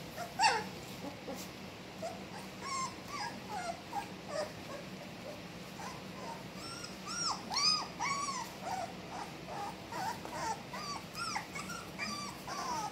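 A litter of three-week-old border collie puppies giving many short, high whimpers and squeaks as they play, the calls busiest and loudest about halfway through.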